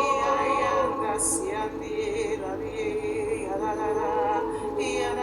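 Background worship music with a sung voice holding long notes that waver slightly, and no words.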